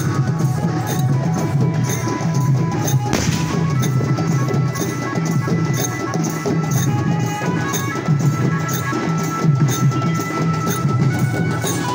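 Drum-driven folk music: deep drums beating a steady quick rhythm under a held, high melodic line. A single sharper hit stands out about three seconds in.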